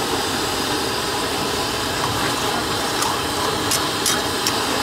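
Prawn karahi sizzling in a large wok over a gas burner, a steady rushing noise, with a few light clicks of the ladle against the wok in the second half.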